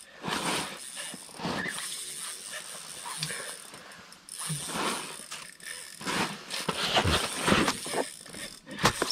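Fishing reel ratcheting and being cranked in irregular spurts while a hooked lake trout pulls against the line.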